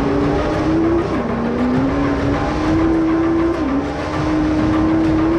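PCR Sport GenCar prototype's engine heard from on board, revs climbing slowly with two sudden dips, about a second in and near four seconds, as the sequential gearbox shifts.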